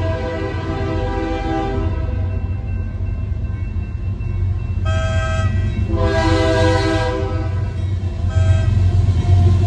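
Approaching train's locomotive horn sounding a chord in separate blasts: a long one that ends about two seconds in, a short one about five seconds in, a longer one about six seconds in, and a short one near the end. This is the warning for the grade crossing. A low rumble grows louder near the end as the train nears.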